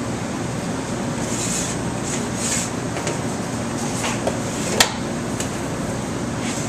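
Steady hum and hiss of restaurant kitchen machinery, with a sharp click a little under five seconds in.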